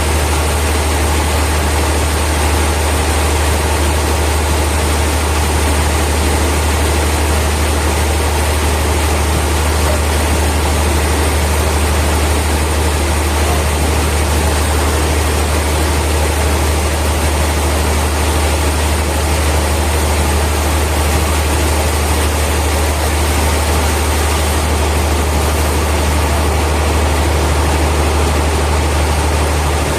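Heavy sawmill machinery running steadily: a loud, constant low hum under an even wash of mechanical noise, with no change in pitch or rhythm.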